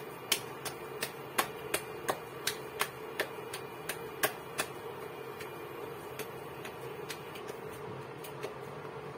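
Hands patting a lump of ragi (finger millet) dough between flour-dusted palms to flatten a thick roti: quick soft slaps about three a second, thinning out after about five seconds. A steady hum from the switched-on induction cooktop runs underneath.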